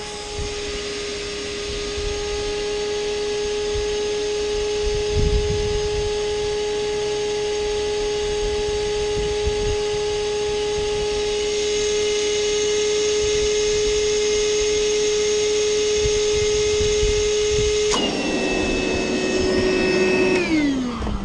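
Small electric motor of a handheld yellow cordless power tool running at a steady high whine. Near the end a rushing hiss joins in and the pitch dips slightly, then it is switched off and winds down with a falling whine.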